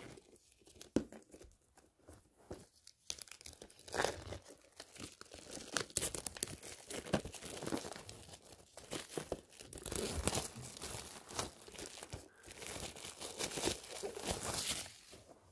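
Clear cellophane shrink wrap being torn and crinkled as it is peeled off a steelbook disc case: a few light clicks, then from about three seconds in an irregular, continuous crackling and rustling of plastic.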